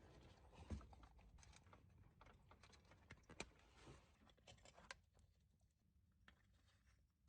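Near silence with faint, irregular small clicks and knocks, one slightly louder knock about a second in and another about halfway through.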